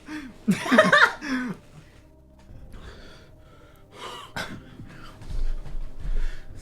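A person hiccuping: short gasping vocal sounds in the first second and a half, then quieter, with another sharp catch around four and a half seconds in.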